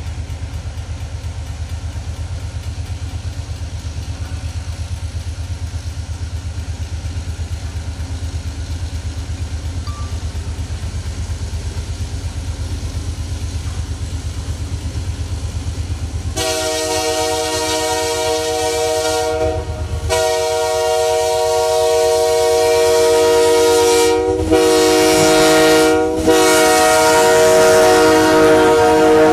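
MLW S-13u diesel switcher locomotive's air horn blowing four blasts, long, long, short and long: the grade-crossing signal, as the locomotive comes closer. Before the horn there is a steady low rumble.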